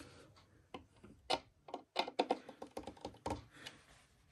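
Hand screwdriver tightening screws into the panels of a flat-pack side table: a string of short, irregular clicks and taps of the tool and screws against the board, starting about a second in.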